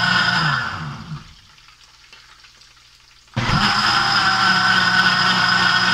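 Instant Pot Ace Plus blender motor blending hot purple yam soup to a purée. It runs steadily, winds down and stops about a second in, then starts up again suddenly after about two seconds and runs on steadily.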